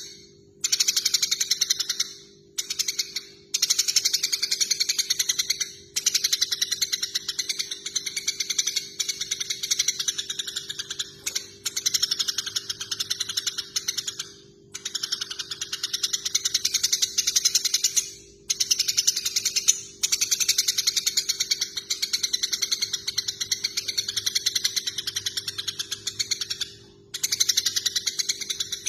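Eurasian tree sparrows giving rapid, rattling fighting chatter in bouts of several seconds, broken by short pauses, over a faint steady low hum.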